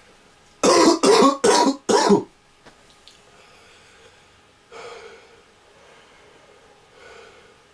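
A man coughing hard four times in quick succession, clearing a throat burnt by a chilli-extract hot sauce, followed by a quieter breath about five seconds in.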